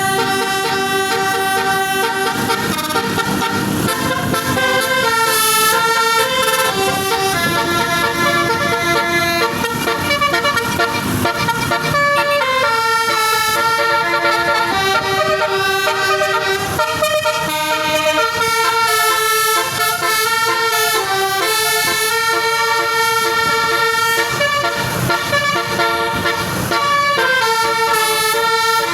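Bus 'telolet basuri' multi-tone air horn playing a tune: a long run of loud horn notes, often several at once, changing pitch every half second to a second.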